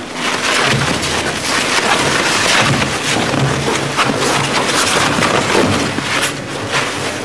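Grupo SPR RS 85 twin-shaft shear shredder tearing material between its rotating cutter shafts: a loud, continuous crackling and ripping over a steady low hum from the drive.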